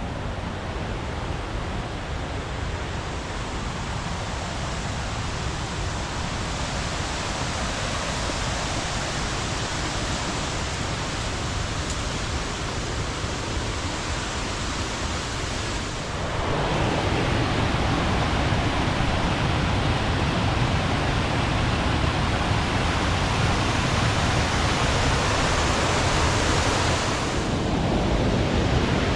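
Waterfall rushing, a steady roar of falling water that grows louder about halfway through and dips briefly near the end.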